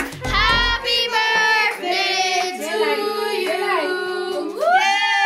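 A song with high-pitched singing over light backing music; the drum beat drops out about a second in, and a rising swoop into a long held note comes near the end.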